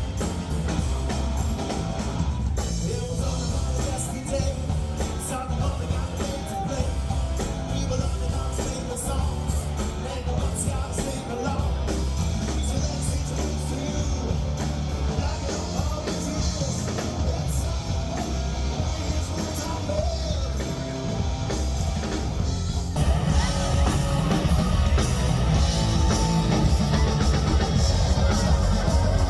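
Rock-and-roll band music with singing from a rooftop concert show; it gets louder and fuller about three quarters of the way through.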